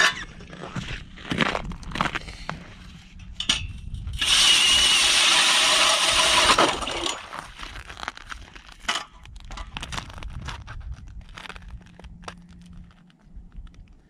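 Power ice auger boring through lake ice, a loud grinding cut lasting about two and a half seconds from about four seconds in. Knocks and clatter of the auger being handled and set down on the ice come before and after it.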